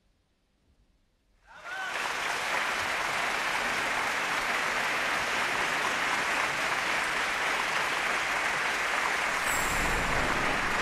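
A hush of about a second and a half, then a large theatre audience breaks into applause all at once, clapping loudly and steadily.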